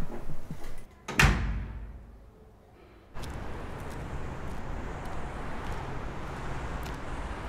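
A building's entrance door slams shut about a second in, and its boom dies away over a second or so. After a short hush, steady street-traffic noise of passing cars takes over from about three seconds in.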